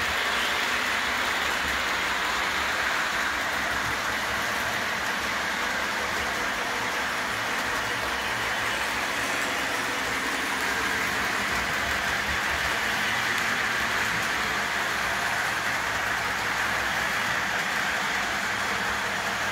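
O-gauge three-rail model train running around the layout: a steady rolling whir of wheels and motor on the track that holds even throughout.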